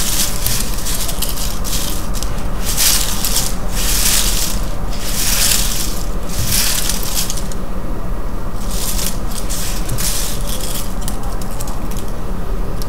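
Small folded paper slips rustling and crackling as hands stir and shuffle a pile of them on a tabletop, in uneven surges with a short lull about two-thirds through.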